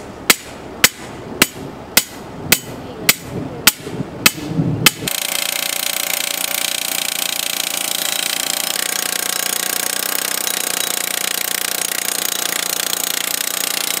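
A hand hammer striking the top of a steel T-post about nine times, just under two blows a second, to start it in the ground. About five seconds in, a powered post driver takes over and hammers the T-post steadily.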